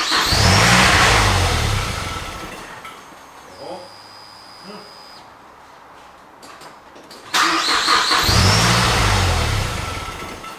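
Mazda 3 MPS turbocharged 2.3-litre four-cylinder engine starting twice. Each start comes on suddenly and loud, then fades over two to three seconds. With a custom cold air intake on the standard ECU tune, the engine won't stay running for long.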